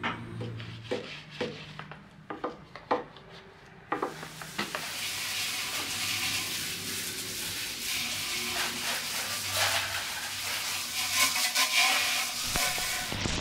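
A few light clicks and knocks as cleaning bottles are handled, then about four seconds in a garden hose spray nozzle opens with a steady hiss, spraying water onto a motorcycle, and stops near the end.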